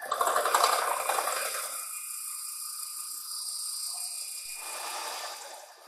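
Milling cutter on a planer mill roughing a steel press brake die. A loud, rough cutting noise starts suddenly for about two seconds, then settles to a steadier high-pitched hiss with a faint whine that fades near the end.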